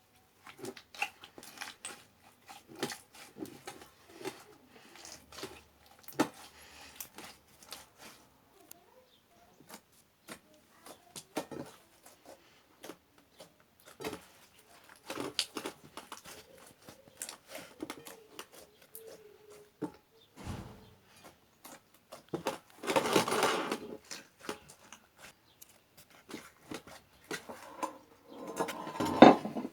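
Slime being mixed and squeezed by hand: a string of small sticky clicks and pops, with two longer, louder crackly bursts, one about three-quarters of the way through and one near the end.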